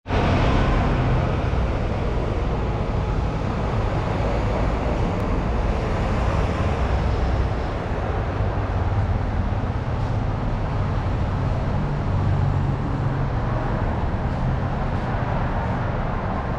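Town street traffic: cars and motor scooters running past close by, a steady rumble of engines and tyres, loudest in the first couple of seconds.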